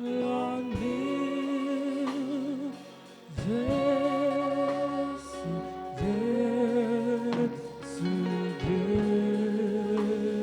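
Slow gospel singing with instrumental backing: a voice holds long notes with vibrato in phrases of about three seconds, with short breaks between them.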